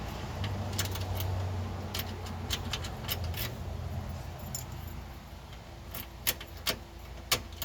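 Keys jangling on a key ring with scattered light clicks as the key is worked in a newly installed ignition lock cylinder, with a few sharper clicks near the end.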